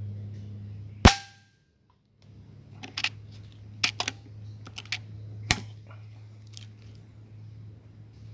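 A single sharp air-rifle shot about a second in, with a brief ringing tone after it. A run of smaller clicks and knocks follows, the last sharp one about five and a half seconds in.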